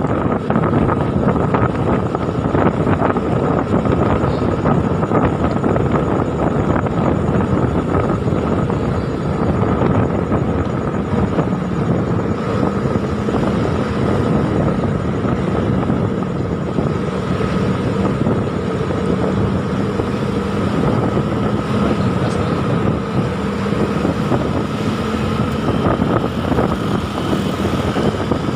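Steady engine and road noise of a moving motorcycle, with wind rushing over the microphone.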